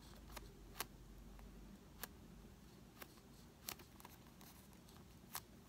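Near silence broken by about half a dozen faint, sharp clicks at irregular intervals, as fingers press and handle a macaroon squishy toy that is hard rather than soft.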